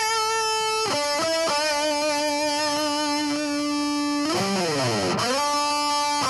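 Electric guitar playing a slow lead melody of long held notes with vibrato; a little over four seconds in, the pitch dives down and swoops back up before the melody goes on.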